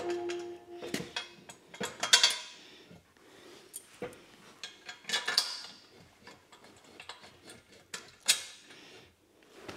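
Steel parts of a bale-trailer frame being handled and fitted together: scattered metallic clinks and knocks of square steel tubing. The loudest knocks come about two seconds in and just after eight seconds.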